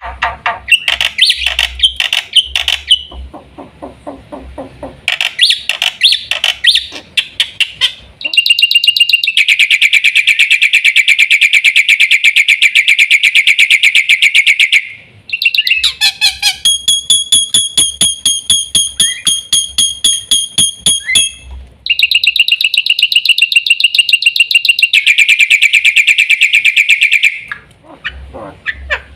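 Black-winged myna (jalak putih) singing: bursts of varied, harsh chattering calls alternating with long, fast, even trills of repeated notes, each trill lasting several seconds.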